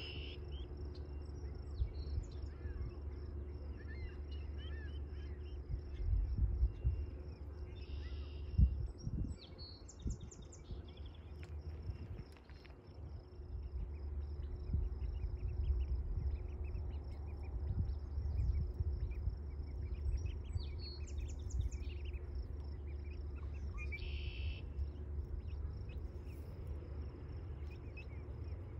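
A steady, high insect trill runs throughout, typical of crickets or katydids, with scattered short bird chirps over it. Beneath it is a low rumble, with a few louder low thumps about six to nine seconds in.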